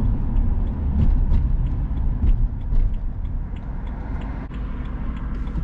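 Low, uneven rumble of a BMW E92 M3's V8 engine and road noise, heard from inside the car while it is driven.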